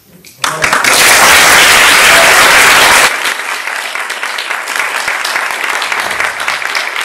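Audience applauding: loud for the first couple of seconds, then dropping suddenly to softer, steady clapping.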